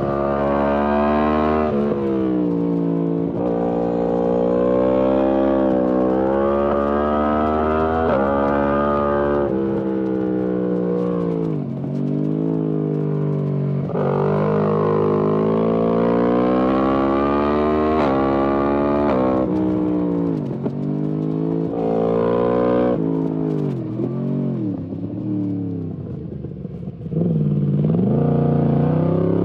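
Yamaha MT-10 SP's crossplane inline-four running through an Akrapovic exhaust on a twisty road. The pitch climbs under acceleration and falls back at each gear change, over and over. A quieter stretch off the throttle, with short dips and rises, comes before a strong pull near the end.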